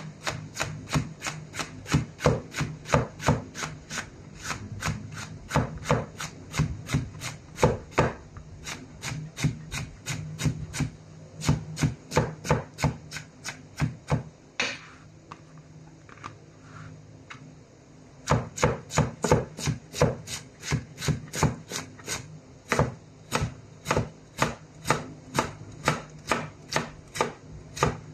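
Kitchen knife chopping a white root vegetable on a cutting board: quick, even knocks of the blade on the board, about three a second. The chopping stops for a few seconds about halfway, then picks up again at the same pace.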